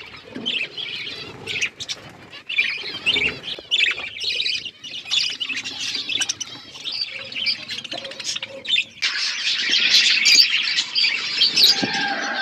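A flock of budgerigars chattering, many short high calls overlapping, growing louder and denser about nine seconds in.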